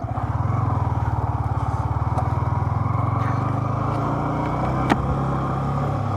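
Motorcycle engine running as the bike rides along, picking up at the start and then holding steady, with one sharp click about five seconds in.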